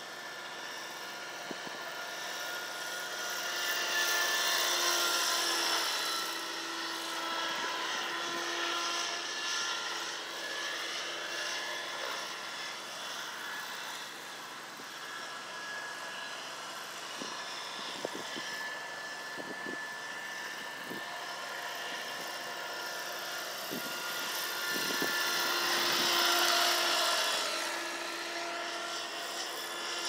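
Radio-controlled scale model helicopter flying: a steady whine from its motor and rotors, shifting in pitch as it manoeuvres. It grows louder twice as it passes close, about four seconds in and again near the end.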